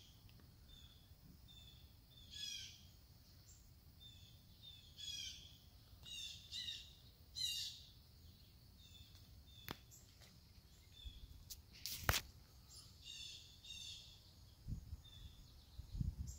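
Songbirds calling: short chirping phrases repeated every second or two, with single short notes between them. A sharp click about twelve seconds in.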